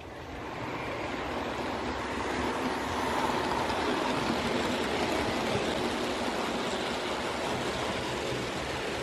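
OO gauge model train running past on the track: a steady noise of wheels on rails that grows louder over the first three seconds and then holds.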